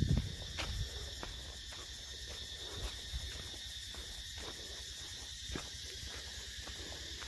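Steady high-pitched chorus of insects, with light ticks about every half second and a brief low rumble at the very start.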